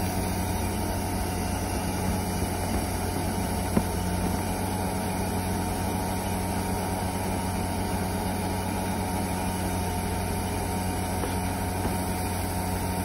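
Steady low machine drone like an idling engine, unchanging throughout, with a single sharp click about four seconds in.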